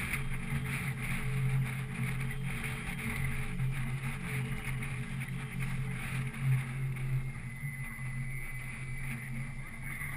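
Boat motor running steadily with a low, even hum.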